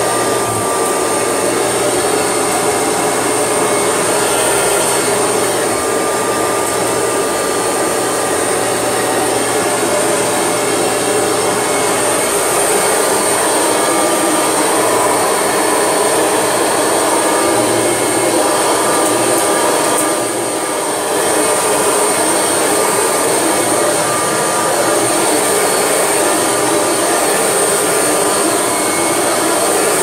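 Kirby Legend II upright vacuum cleaner running steadily as it is pushed over carpet, with a constant high-pitched whine over its motor noise. The sound drops briefly about twenty seconds in.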